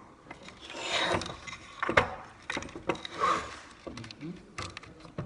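A connector kit's two halves being pushed together as a device is fitted onto its base: rubbing and scraping with scattered clicks, and one sharp click about two seconds in as the parts seat.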